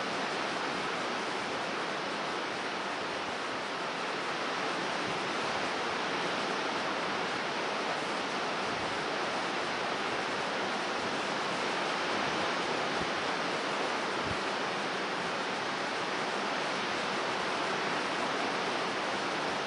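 Steady rushing roar of a rough, storm-driven sea breaking on a rocky shore, with strong wind, unchanging throughout.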